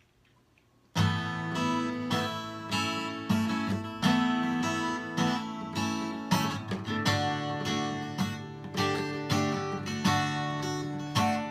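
Acoustic guitar strumming chords: the instrumental intro of a song, starting suddenly about a second in.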